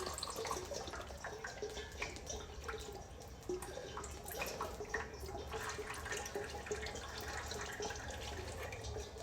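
Automatic transmission fluid dripping and trickling into a drain pan from the open transmission, with its pan just lowered off, in many small irregular drips.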